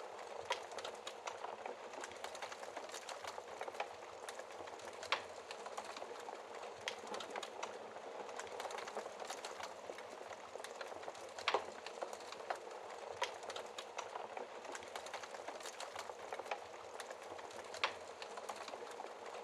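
Fire crackling in a fireplace: a steady hiss with irregular pops and a few louder snaps.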